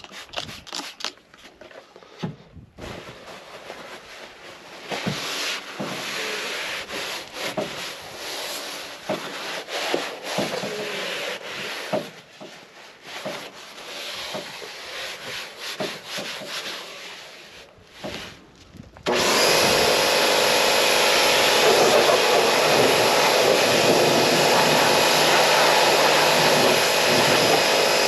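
Rag scrubbing and wiping a dirty truck-cab dashboard by hand in irregular rubbing strokes. About two-thirds of the way in, a loud, steady machine noise cuts in suddenly and keeps running.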